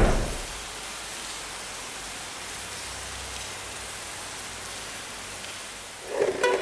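Music dies away in the first half-second, leaving a steady, even hiss. Music comes back in near the end.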